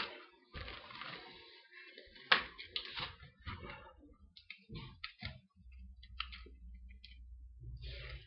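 Clicks and rustles of LEGO Mindstorms NXT plastic parts being handled and fitted together, with one sharp click about two seconds in. Near the end a low steady hum takes over.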